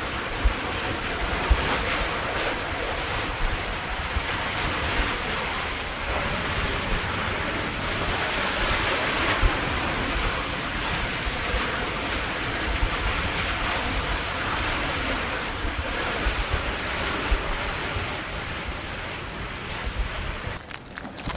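Ocean surf with wind on the microphone, a steady rushing noise with a few short sharp spikes near the start and around the middle.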